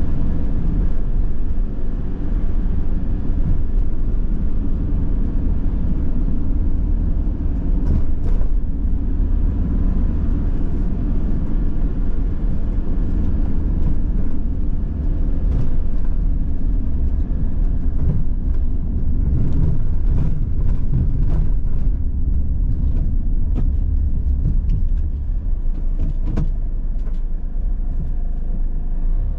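A van driving, heard from inside the cabin: a steady low engine and road rumble, with a few short knocks scattered through it.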